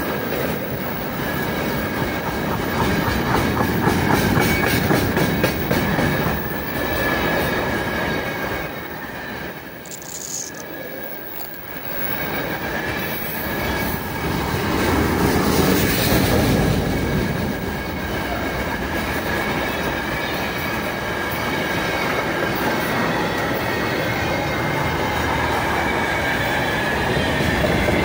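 Freight train wagons rolling past close by: wheels rumbling and clacking over the rails, with a steady high wheel squeal. The noise drops for a couple of seconds about ten seconds in, then swells again.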